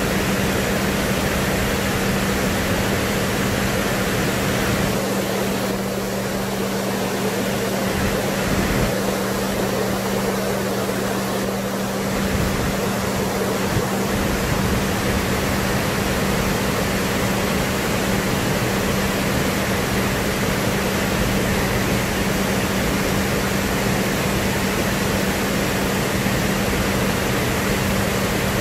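Steady rushing of the Palbong waterfall and the fast-flowing river below it, with a constant low hum underneath.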